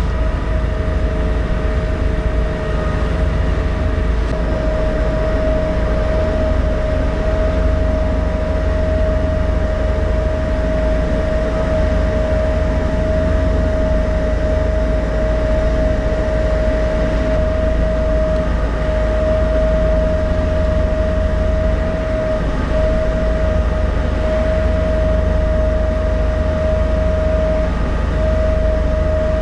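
Steady drone of the car ferry Sound of Shuna's engines and machinery under way: a deep, constant rumble with a steady whine held at one pitch on top, unchanging throughout.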